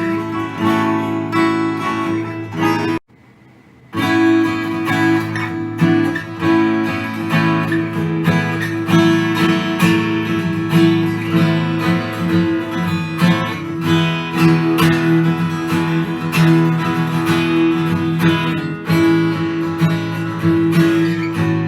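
Martin dreadnought acoustic guitars played in turn: a Martin D-28 for about three seconds, a break of about a second, then a Martin D-35 playing chords that ring out fully.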